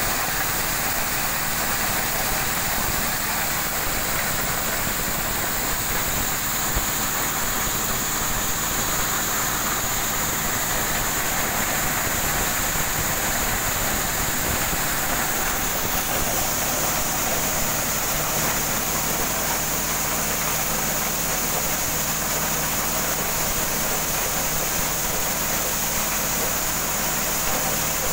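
Engine-driven corn sheller running steadily under load, its small stationary engine and threshing drum making a constant mechanical din, with the hiss of shelled corn kernels pouring down the chute.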